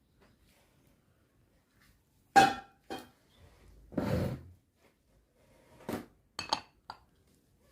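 Kitchenware being handled: a sharp, ringing clink about two and a half seconds in, the loudest sound, then several lighter knocks and clinks. A short noisy sound lasting about half a second comes around four seconds in.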